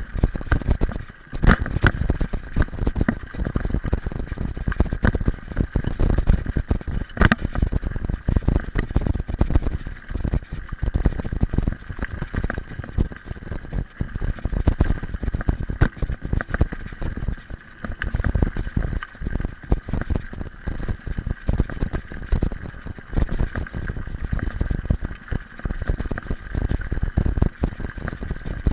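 Mountain bike rolling over a loose gravel road, heard through a camera riding on the bike or rider: tyres crunching on stones, with constant rattling and knocks from the bumps over a low rumble.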